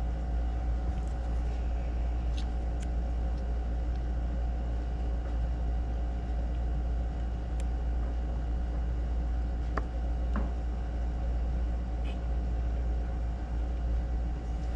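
A steady low hum runs throughout. Over it come a few faint, scattered clicks as small parts of a switch assembly are handled and fitted together.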